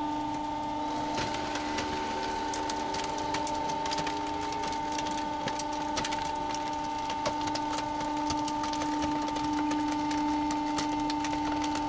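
Electric self-compacting waste container running its compaction cycle: a steady hum on two fixed tones, with scattered cracks and clicks as the rubbish inside is pressed.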